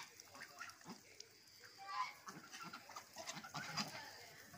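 Domestic geese feeding on grass, with scattered short soft calls and pecking noises; one call about two seconds in is the loudest.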